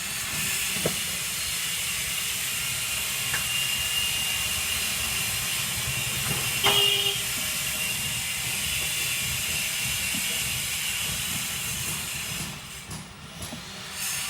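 Steady hissing noise, like rushing air, with a few faint clicks and a short tone about halfway through; it dips in level near the end.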